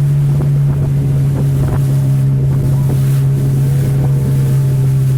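Boat engine running steadily at a constant speed, a low, even drone, with wind noise on the microphone.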